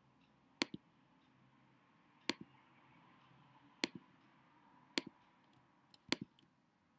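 Single clicks of a computer's pointer button as a pen colour is picked from an on-screen palette. There are about seven clicks, spread out at first and then a few close together near the end.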